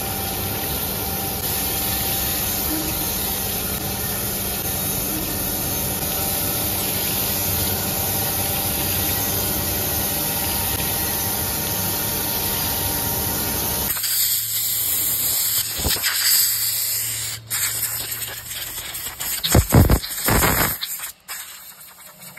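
Crankshaft grinding machine's abrasive wheel grinding a rotating crankshaft rod journal under coolant spray: a steady, even noise with a low machine hum. About two-thirds through it cuts off abruptly, giving way to quieter irregular handling sounds with a few loud knocks near the end.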